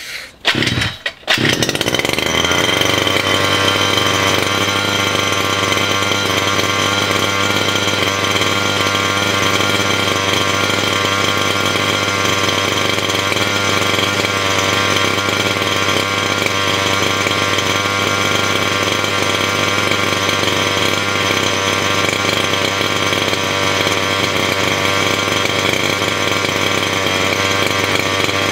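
Small 30cc two-stroke petrol engine of a 1/5-scale RC buggy firing in short uneven bursts, catching about a second and a half in and then running steadily. It is running on a 25:1 petrol-oil mix on the standard tune, slightly rich, according to the owner.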